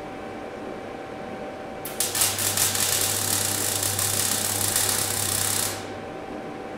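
Electric arc welding: about four seconds of steady crackling buzz from a welder laying a short bead or tack on steel, starting and stopping abruptly about two seconds in.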